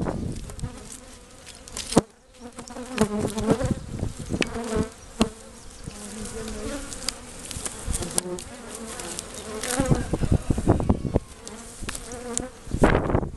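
Agitated honeybees flying close around the microphone, a wavering buzz that rises and fades as they pass. Scattered sharp knocks of bricks being handled and set on the ground, the loudest about two seconds in.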